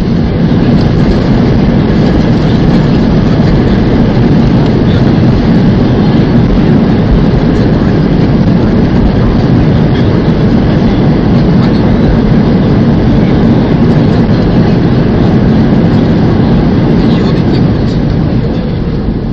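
Loud, steady rumbling roar heard inside an Airbus A320's cabin during the landing roll on the runway, easing off near the end as the aircraft slows.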